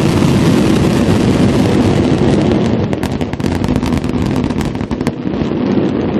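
Fireworks finale barrage: many shells bursting at once, a continuous rumble of booms with dense crackling throughout.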